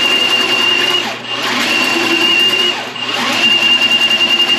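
A powered drain-cleaning machine runs with a steady high motor whine as it spins its cable down the drain line. The sound briefly eases and breaks about a second in and again about three seconds in.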